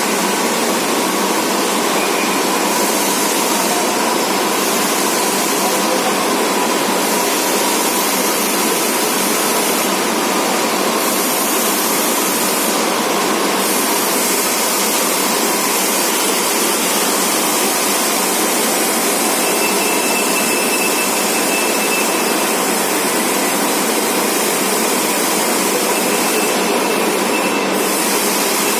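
All-geared CNC-retrofitted lathe running: a steady machine noise with a faint whine.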